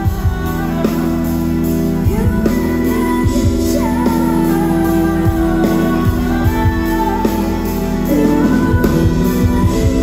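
Live concert music: sustained chords over a low, repeated beat, with a woman's voice singing over them.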